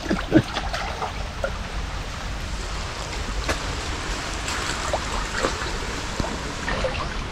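Shallow canal water sloshing and trickling, with a few small splashes scattered through.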